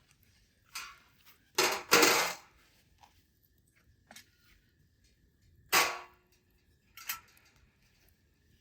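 Camp cookware and utensils being handled: a handful of short clinks and scrapes, the loudest about two seconds in and another near six seconds.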